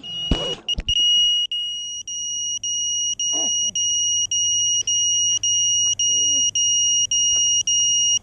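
FPV racing quadcopter's lost-model buzzer beeping a steady high-pitched tone, broken briefly about twice a second, sounding once the drone is down in the grass with its motors stopped. A few knocks from the drone tumbling to rest come in the first second.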